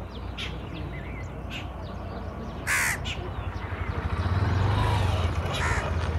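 Crows cawing, several short harsh calls a second or more apart, the loudest about three seconds in, over a low hum that grows louder in the second half.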